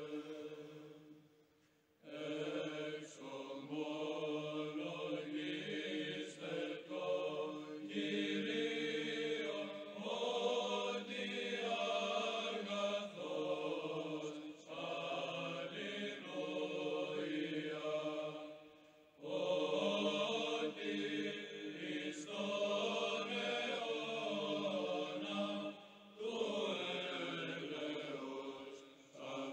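Slow religious choral chant sung in long held phrases over a steady sustained drone, with short pauses between phrases.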